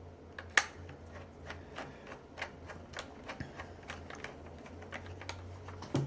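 Irregular small clicks and taps, a few a second with one sharper click about half a second in, as a screwdriver turns screws back into a reciprocating saw's housing. A faint low hum runs underneath.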